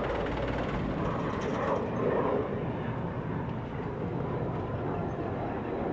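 Mitsubishi Fuso dump truck's diesel engine running steadily at idle.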